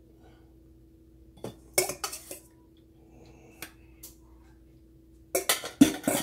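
Metal spoon scraping and clinking against a metal baking pan while spreading tomato sauce over stuffed pasta shells, in scattered strokes, with a denser burst of clatter near the end.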